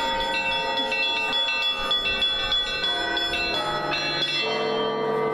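Church bells ringing: many bells struck in quick succession, their tones ringing on and overlapping. A deeper, steady tone joins about four and a half seconds in.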